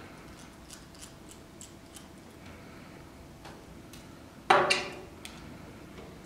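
Faint ticks and clicks of a small pentalobe screwdriver turning the two bottom screws out of an iPhone 4S. About four and a half seconds in comes one much louder sharp knock with a short ring.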